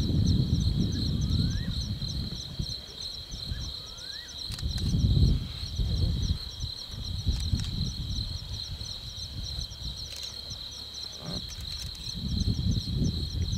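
Lioness feeding on a kudu carcass, tearing and chewing at the meat in irregular bouts of low, rough crunching. Behind it, a steady high trill of crickets with rapid pulsing chirps.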